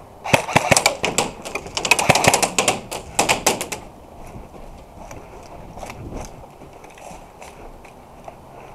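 Airsoft guns firing: a dense run of rapid, sharp clacks in bursts for about three and a half seconds, then only faint scattered clicks.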